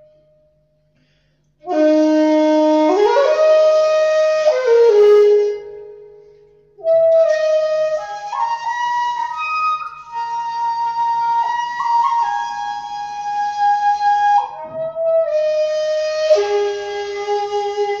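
Handmade 1.7 jimori shakuhachi of madake bamboo played solo, with a breathy air tone: after a brief silence, three long phrases of held notes that step up and down in pitch, each separated by a short pause for breath.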